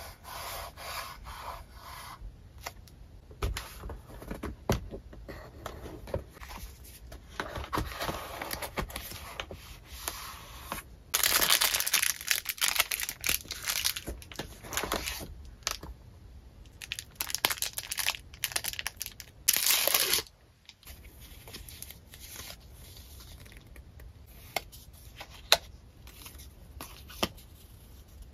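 Paper stationery and its packaging handled close to the microphone: sticker sheets, cards and sticker flakes rustling, rubbing and tapping. A louder stretch of rustling comes a little before the middle, and a short loud burst about two-thirds of the way through.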